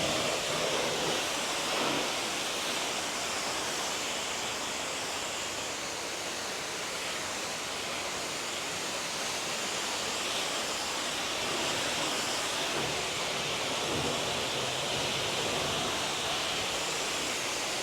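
Steady spray of water from a hose onto a car's paintwork and wheels, rinsing off dirt and brake dust.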